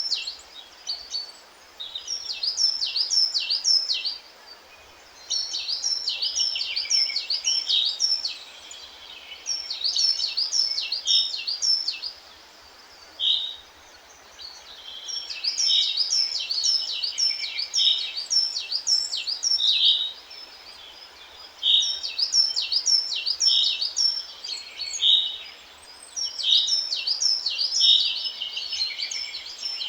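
Songbirds singing: phrases of rapid, repeated high chirps, each a few seconds long, separated by short pauses, over a faint steady hiss.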